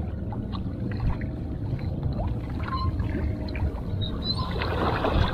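Shallow sea water lapping and sloshing around wading anglers, over a steady low rumble of wind on the microphone.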